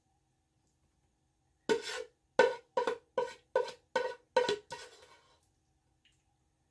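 A spoon knocking against the rim of a metal saucepan, about eight quick ringing knocks in three seconds, as the last of the thick apple pie filling is scraped out.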